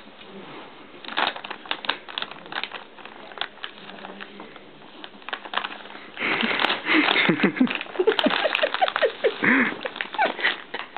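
Plastic Purina Beggin' Strips bag crinkling and crackling as a small dog pushes its head into it and pulls at it, digging for treats. The crinkling grows louder and busier from about six seconds in.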